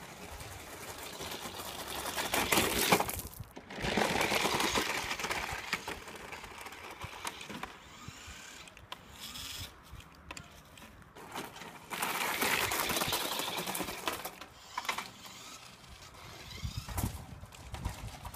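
Radio-controlled toy monster truck driving over stones: small electric motor running and tyres on loose gravel, loudest in two spells of a few seconds each.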